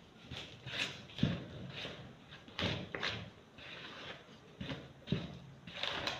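Wooden spoon beating thick cupcake batter in a plastic bowl: irregular scraping, with a few soft knocks of the spoon against the bowl.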